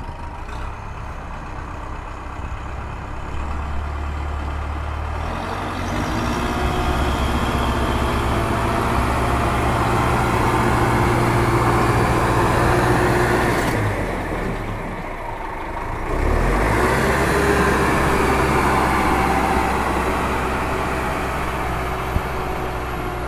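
A heavy vehicle engine running steadily, dropping away about fourteen seconds in and picking up again about two seconds later.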